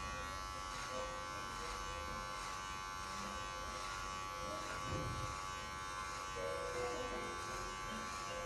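Electric hair clippers buzzing steadily as they cut a beard.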